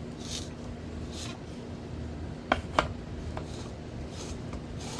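Quiet kitchen handling: faint rubbing scrapes, then two sharp clicks of kitchen utensils about two and a half seconds in and a lighter one soon after, over a steady low hum.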